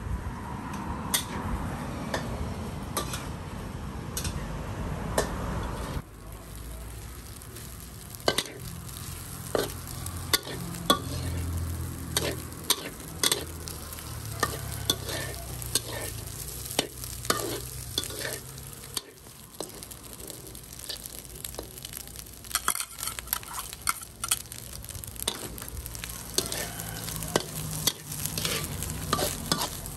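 Shrimp fried rice stir-fried in a wok: a metal spatula scrapes and clacks against the wok again and again at an uneven pace while the rice sizzles.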